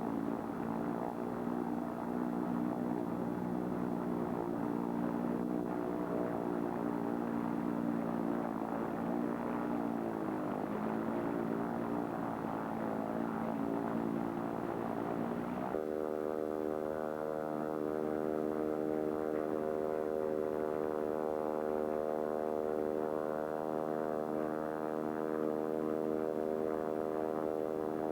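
Light propeller aircraft engine running steadily, its pitch dipping briefly about ten seconds in. About sixteen seconds in the sound changes suddenly to a different, steady engine tone.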